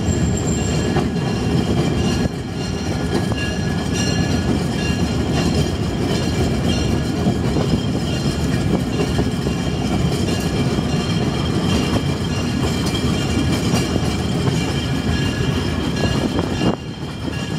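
Small excursion train rolling along the track, heard from aboard an open-bench passenger car: a steady rumble of wheels on rails.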